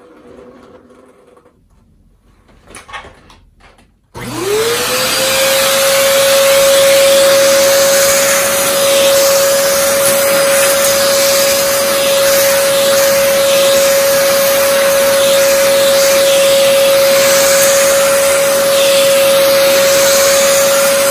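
Dyson DC14 upright vacuum cleaner switched on after a few faint knocks, about four seconds in: its motor whine rises quickly to a steady high tone and then runs on with a loud rush of air.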